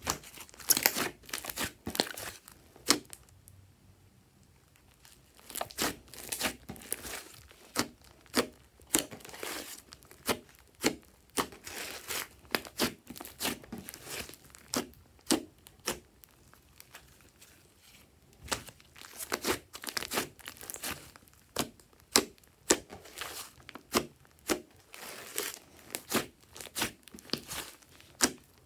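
Thick glossy slime squeezed, pressed and stretched by hand, its trapped air pockets popping in sharp, irregular clicks and pops, with a short quieter lull about three to five seconds in.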